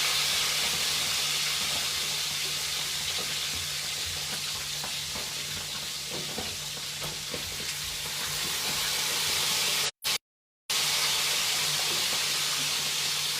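Food sizzling as it fries in hot oil in a pan, a steady hiss with a few light knocks near the middle. The sound cuts out completely for under a second about ten seconds in.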